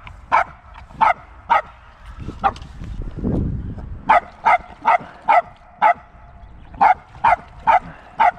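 A dog barking repeatedly in short, high yaps, about a dozen of them, coming in loose runs of two to four at roughly two a second.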